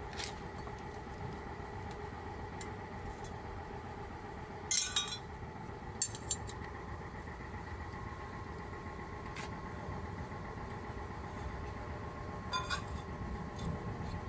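Short metallic clinks as an Isuzu 4HF1 diesel's crankshaft pulley is handled and fitted back onto the crankshaft nose: a few around the middle and a pair near the end. They sound over a steady mechanical hum.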